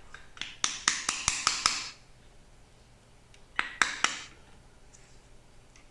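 Marking gauge's beam slid back and forth in its stock: a run of light clicks and rattles with a scraping rub, then a second, shorter run about three and a half seconds in.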